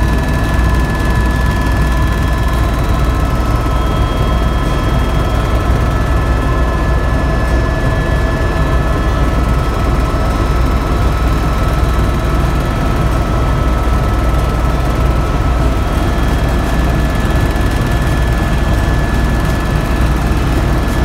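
Tour helicopter in flight, heard from inside its cabin: a loud, steady deep rotor and engine rumble with a few constant high-pitched tones over it.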